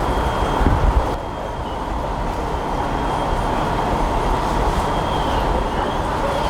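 Steady rumble of idling vehicle engines, with a faint steady high whine over it and a couple of low thumps about a second in.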